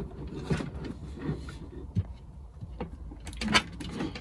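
Scattered light clicks, knocks and rustles as a network switch is slid into place under a shelf and its power and network cables are handled, with a small cluster of clicks near the end.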